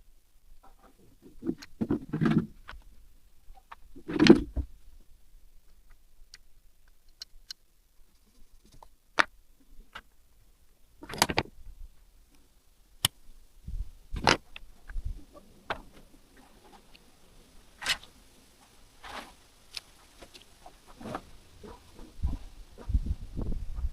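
Irregular clicks, knocks and thumps of objects being handled and set down, with the loudest thump about four seconds in.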